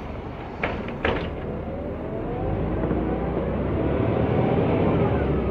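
Mercedes-Benz O 405 N2 city bus pulling away: two sharp clacks about a second in, then the engine and drivetrain speeding up, with a rising whine that grows louder.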